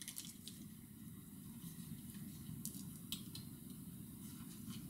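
Faint handling noises of picture wire being fed through a screw eye on the back of a canvas: a few light ticks and rustles over a steady low hiss.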